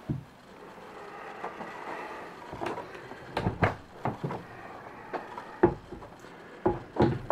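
Scattered knocks and bumps with a low rustle, from someone moving through a small boat cabin with a handheld camera, the sharpest knocks grouped a few seconds in and near the end.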